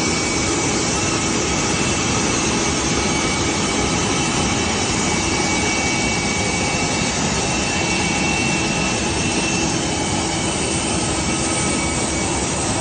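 Business jet's turbofan engines running on the apron: a loud, steady rush with thin, steady high whining tones over it.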